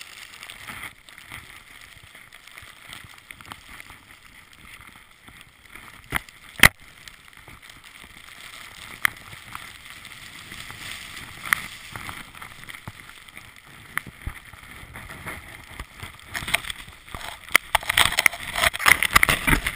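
Steady hiss of a rider sliding through deep powder snow, with scattered sharp knocks, two close together about six seconds in, and a busier run of knocks and louder snow noise in the last few seconds.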